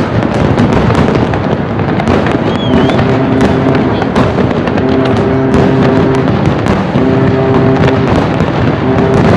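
Aerial fireworks shells bursting one after another, a dense run of bangs and crackling. From about three seconds in, a held chord of steady notes comes and goes every couple of seconds underneath.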